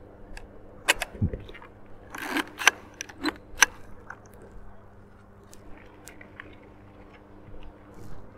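Sharp clicks and clacks from handling a Fuji GSW690III medium-format film camera and releasing its shutter, clustered between about one and four seconds in, with a few lighter ticks later. A faint steady low hum sits underneath.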